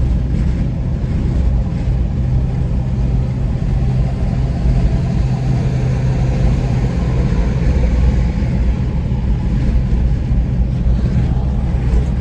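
Car cruising on the interstate, heard from inside the cabin: a steady low drone of engine and tyre noise.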